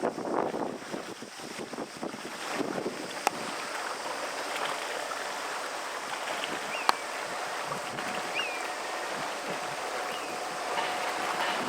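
Wind buffeting the microphone in gusts, settling into a steady hiss of wind and water, with a few sharp clicks and faint short chirps.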